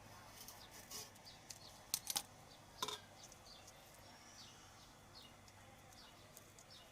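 Small birds chirping faintly in short, repeated high chirps, with a few sharp clicks about two and three seconds in.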